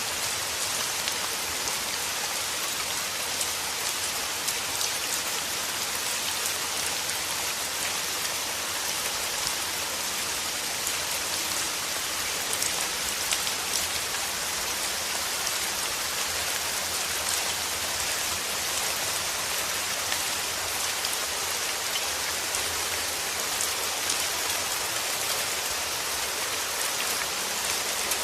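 Steady rain falling on a surface: a dense, even hiss with many fine drop ticks, at a constant strength throughout.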